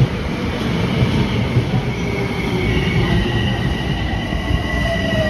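Metro-North electric commuter train pulling into the platform and slowing as its cars roll past, with a low rumble throughout. About halfway through, high steady squealing sets in from the wheels and brakes, and near the end a lower whine slides down in pitch as it comes to a stop.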